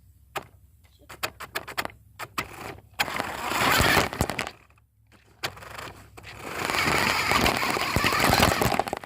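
Four-wheel-drive RC Polaris toy car driving, heard through a phone mounted on it: first a run of sharp clicks and knocks, then two long stretches of loud rattling, rolling noise, the second running until near the end.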